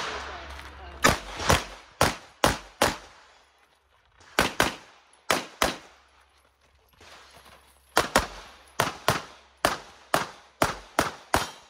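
Semi-automatic pistol firing about eighteen shots, mostly in quick pairs of two per target, in three strings with short pauses between them while the shooter moves.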